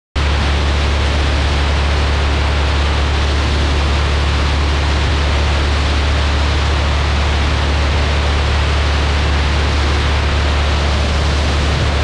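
Steady wind rush over a wing-mounted GoPro on a Cessna 172 in climbing flight, with the engine and propeller's constant low drone underneath. The noise cuts in abruptly at the start and holds an even level.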